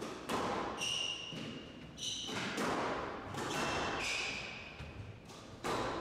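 Squash rally: sharp smacks of the ball off rackets and walls every second or two, with short high squeaks of court shoes on the wooden floor in between.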